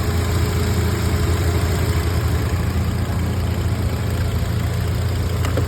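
Hyundai Creta's engine idling steadily, turning a freshly fitted second-hand alternator that is charging the battery. A light click near the end.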